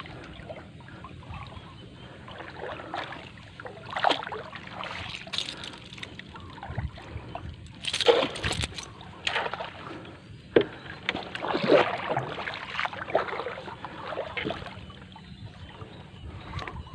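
Irregular water splashes and drips beside a wooden canoe as a bintol crab lift net is hauled up on its bamboo pole and line. The loudest splash comes about eight seconds in.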